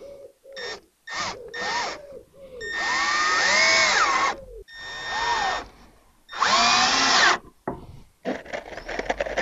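Cordless drill/driver driving stainless-steel self-drilling screws into Douglas fir boards, in several separate runs. The motor pitch rises and falls with each squeeze of the trigger, and the longest run lasts about two seconds near the middle.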